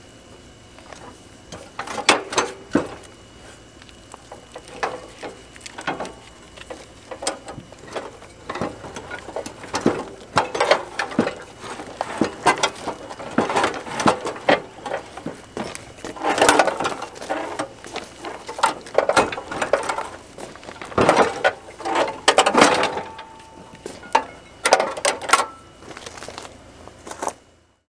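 Hand tools on steel: irregular metallic clicks and clanks as the engine mounting bolts of a 1964 Cub Cadet 122 garden tractor are undone and the engine is worked loose.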